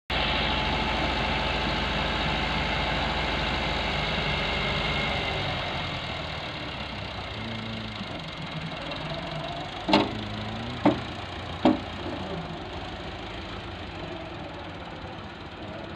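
Massey Ferguson tractor's diesel engine running while its tipping trolley dumps a load of soil. The engine is louder for the first five seconds or so, then settles lower. About ten seconds in come three sharp bangs about a second apart.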